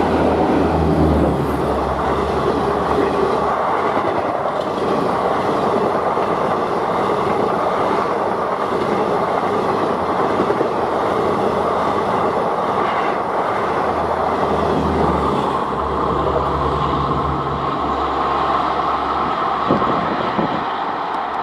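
WAP-4 electric locomotive and its long rake of Garib Rath coaches passing close by: a loud, steady rumble and clatter of wheels on the rails, with a low hum at the start while the locomotive is alongside.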